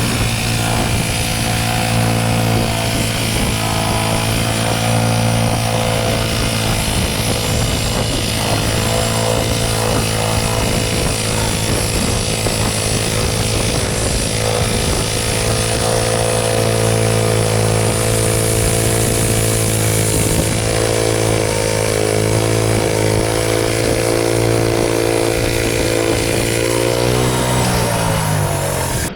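Wood-Mizer LT15 portable band sawmill's engine running steadily under load as the band blade saws through a Douglas fir log. Near the end the engine's pitch falls as it is throttled down.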